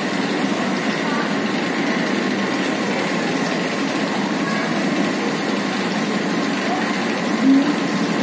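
Tea-factory withering machinery running with a steady, even drone and whir: the withering-trough fans and the overhead leaf-spreading carriage that feeds green leaf into the trough. A short louder blip comes near the end.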